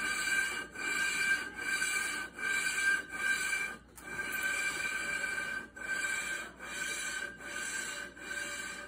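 Lapping tool being worked back and forth by hand over the fire ring of an Alco 539 locomotive cylinder head, metal grinding on metal through valve grinding compound. It makes an even rasping scrape with a short break at each turn of the stroke, a little faster than once a second. The lapping is wearing down pits and etching left on the fire ring by a compression leak.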